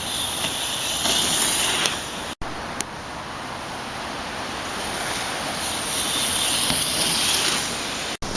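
Strong wind rushing over the camera microphone, a steady noisy roar that briefly cuts out twice, once a couple of seconds in and again near the end.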